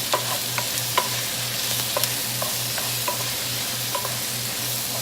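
Onions, ginger, garlic and bell pepper sizzling in a hot pan on high heat as a spatula stirs them, knocking and scraping against the pan again and again.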